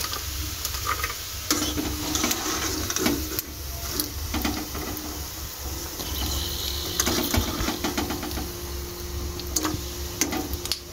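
Papad sizzling in hot oil in a steel karahi, with a wire mesh skimmer clinking and scraping against the pan as batches are scooped out and tipped onto a plate. A steady low hum runs underneath.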